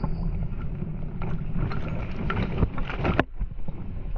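Ride noise from an electric scooter on a bumpy forest dirt trail: wind buffeting and a steady rattle with scattered clicks. A sharp knock a little past three seconds in, after which the riding noise drops, is the scooter striking a tree after the tyre lost grip.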